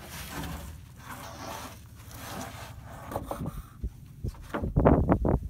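Sawn boards and thin wooden stickers being handled and laid on a lumber stack. Quiet rustling at first, then a quick run of close knocks and shuffling footsteps in the last second or so.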